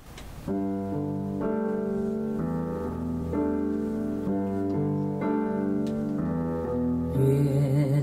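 Slow instrumental song intro with sustained keyboard chords, played through a Polk Audio Signature S20 bookshelf speaker and recorded in the room. The music starts about half a second in, the chords change roughly once a second, and fuller accompaniment joins near the end.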